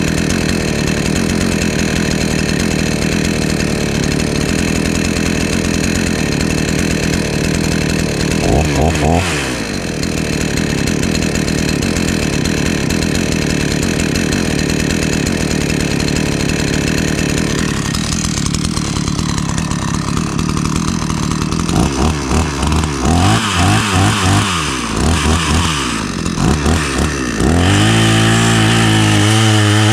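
Hyundai two-stroke chainsaw engine running after a cold start: steady at first, with one brief rev about nine seconds in. From about two-thirds of the way through come a run of quick short throttle blips, then near the end the throttle is opened and held at higher revs.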